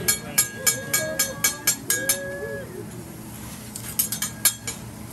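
Metal teppanyaki spatula and knife clanging against each other and the steel griddle. There is a quick run of about nine ringing strikes in the first two seconds, and three more a little before the end.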